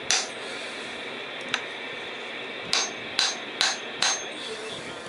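Hammer blows ringing on metal as the axe head is knocked down onto a new hickory handle in a test fit: one blow, a light tap, then four blows in quick succession. The head is still tight, dragging on the handle's eye end.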